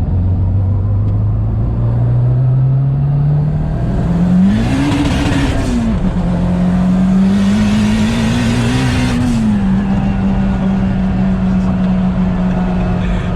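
Car engine running under way: its note climbs steadily, then rises and falls in two surges of acceleration, each with a loud rush of noise, before settling to a steady pitch.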